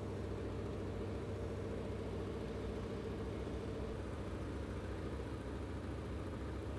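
A steady engine drone: a low hum with a held mid-pitched tone over it.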